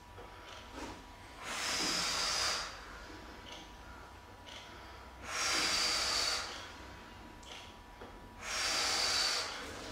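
A man breathing out hard three times, about three seconds apart, one long exhalation with each pull of a chest-supported cable row.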